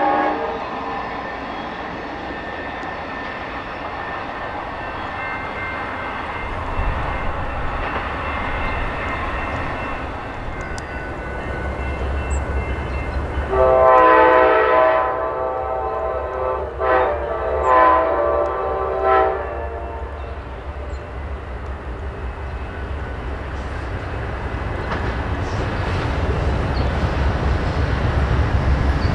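Amtrak P42DC diesel locomotive leading an approaching passenger train, its engine rumble growing steadily louder. About halfway through, its multi-chime air horn sounds one long blast followed by three shorter ones.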